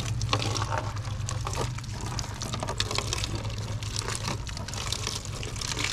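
Stream of water pouring and splashing into and over small plastic plant pots as they are rinsed, an uneven patter of splashes.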